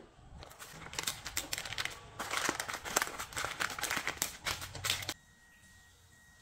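Baking parchment paper crinkling and crackling as it is peeled away from a baked cheesecake. The crackles stop suddenly about five seconds in.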